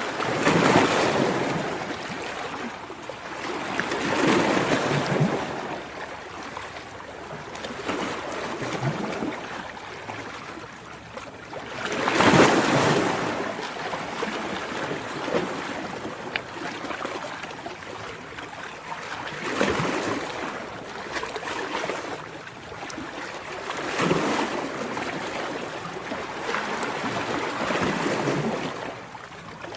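Ocean surf: waves breaking and washing in, a rush of noise that swells and fades about every four seconds, the loudest wave about twelve seconds in.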